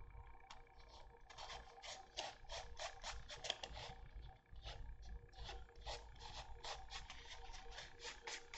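Faint, irregular scratchy rubbing in quick short strokes, starting about a second in: fingertips rubbing excess glue off a Depron foam model fuselage.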